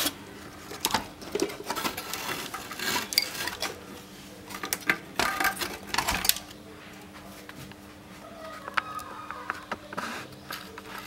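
Clattering and rustling of a CRT television's circuit board and its wiring being handled and lifted out of the plastic chassis, with scattered clicks and knocks. The clatter is dense for the first six seconds or so, then thins to occasional clicks.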